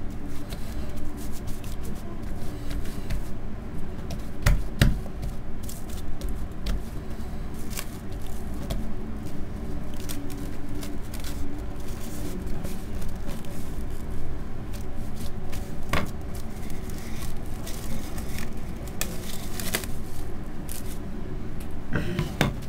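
Plastic cling film crinkling and crackling as it is pulled from its roll and spread over a slab of biscuit dough, with hands pressing the dough flat. Scattered sharp crackles over a steady background hum.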